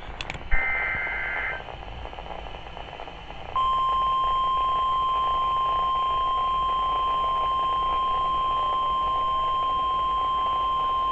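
NOAA Weather Radio emergency alert. About half a second in comes a roughly one-second burst of warbling data tones from the SAME header. Then, after a couple of seconds of radio hiss, the steady single-pitch 1050 Hz warning alarm tone begins and holds unbroken, signalling that a severe thunderstorm watch message is about to be broadcast.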